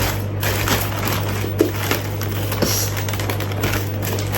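Gift packaging being handled and opened, with scattered rustling, crinkling and small clicks over a steady low hum.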